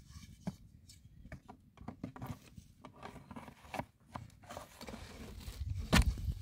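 Soft rustling, scraping and light taps as thin flatbread dough is spread and turned with a stick on a domed griddle, over a low rumble that grows louder near the end. A sharp knock about six seconds in is the loudest sound.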